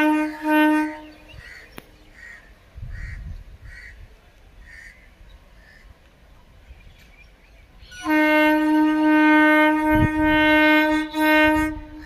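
Horn of an approaching electric suburban (EMU) local train: one steady tone in long blasts. One blast ends about a second in, and another starts about eight seconds in and runs for some three and a half seconds, broken by short gaps near its end.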